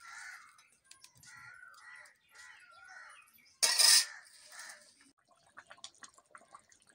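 A loud metallic clatter of about half a second, a little past halfway: a metal ladle against the iron kadai, followed by scattered small clicks. Several short pitched calls sound in the background before it.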